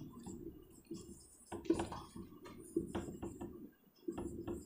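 Marker pen writing on a whiteboard: a series of short, faint scratchy strokes and taps.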